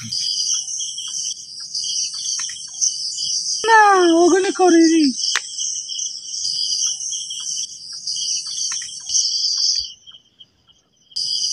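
Crickets chirping in a steady night-time insect chorus of several high pitches. About four seconds in, a person gives a short, high, wavering vocal cry lasting about a second and a half. Near the end everything drops out for about a second.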